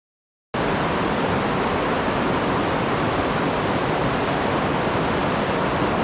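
Steady rush of falling water from a waterfall, cutting in abruptly about half a second in and running on evenly.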